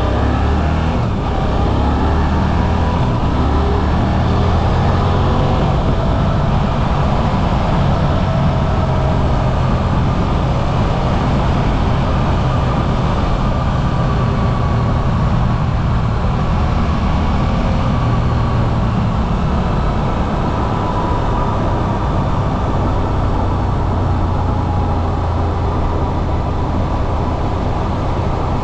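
Suzuki V-Strom 800RE's 776 cc parallel-twin engine pulling steadily under way, its note drifting slightly up and down with throttle. Wind and road rush are heard over a cockpit-mounted camera.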